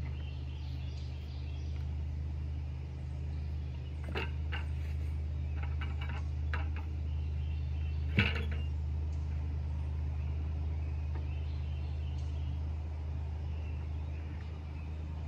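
A steady low machine hum, with a few short clicks and knocks over it; the loudest knock comes about eight seconds in.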